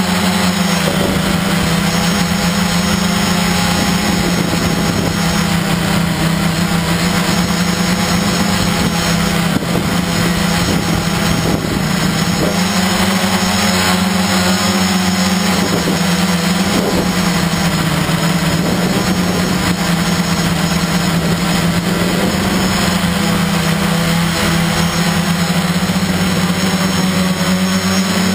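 Electric motors and propellers of a small camera drone buzzing steadily in flight, heard from the camera on board. The pitch wavers slightly as the motor speeds shift.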